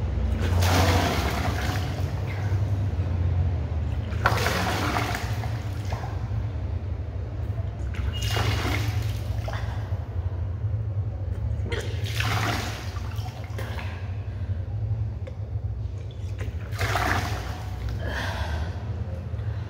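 A woman retching up water in gushes, in about five bursts roughly four seconds apart, as she presses her fingers to the back of her throat to bring back the water she drank: the yogic cleansing practice Kunjal Kriya. A steady low hum runs underneath.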